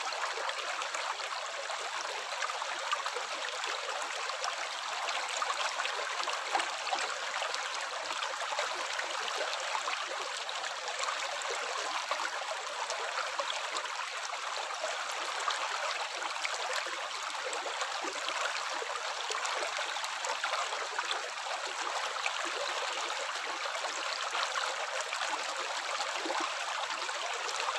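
Running water trickling and splashing steadily, with a dense patter of small droplet splashes and no pauses.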